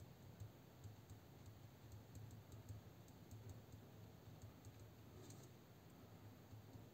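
Very faint ballpoint pen writing on paper: small irregular ticks and scratches of the pen tip, over a low steady hum.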